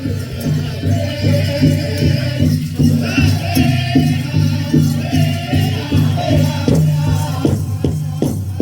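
Powwow drum group singing a grand entry song, several voices together over a big drum struck in a steady beat of about two strokes a second.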